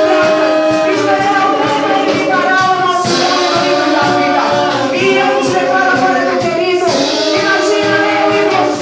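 Worship song: voices singing sustained melodic lines together over instrumental accompaniment with a steady beat.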